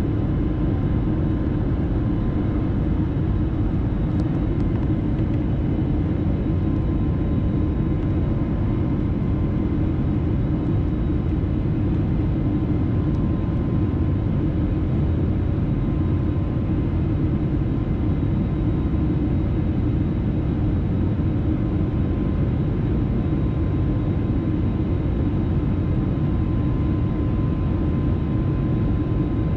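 Cabin noise of a jet airliner climbing after takeoff, heard from a window seat beside the wing-mounted engine: a steady deep rumble of engine and rushing air, with a faint even hum above it.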